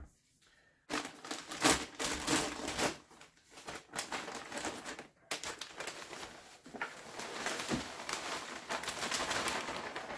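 Dry potting soil being stirred and scraped in a plastic bin: a dense, crackly rustle of many small scrapes, starting about a second in and briefly dipping about halfway through.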